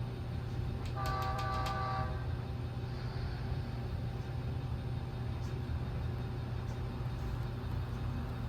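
HO-scale model locomotive's sound unit giving a short horn blast about a second in, with a few clicks, over a steady low rumble from the model's running sound.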